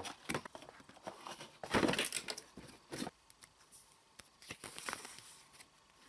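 Packaging being handled, a clear plastic box insert and a paper instruction leaflet crinkling and rustling in irregular bursts. The loudest burst comes about two seconds in.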